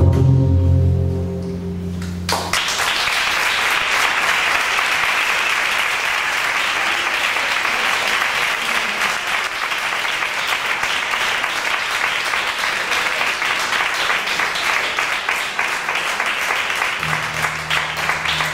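The song's last low instrumental notes ring out and stop about two and a half seconds in, then an audience applauds steadily for the rest of the time.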